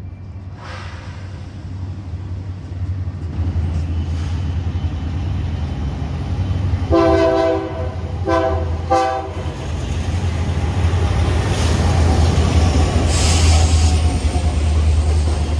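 BNSF intermodal freight train approaching and passing: the diesel locomotives' low rumble builds, and about seven seconds in the horn sounds three blasts, the first the longest. The rumble peaks as the locomotives pass, and then the container cars roll by with wheel and rail noise.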